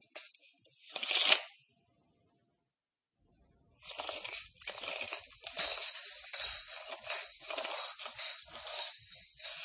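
Metal tape measure blade being run out and back: one short, sharp burst about a second in, then after a pause a run of short rasping bursts.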